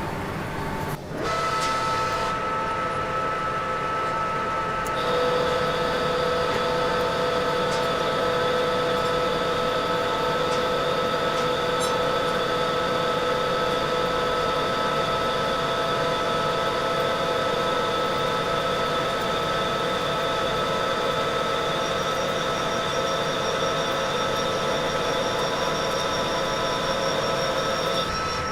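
Metal lathe running steadily while turning a steel shaft, with a constant gearbox whine. About five seconds in, a second, higher whine joins and the sound gets slightly louder.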